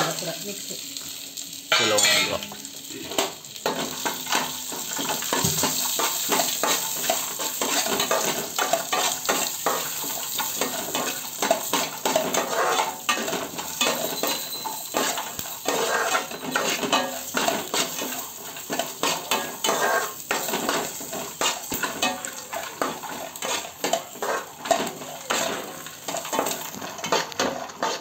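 A spoon stirring food frying in a metal pan, scraping and clinking against the pan over a steady sizzle.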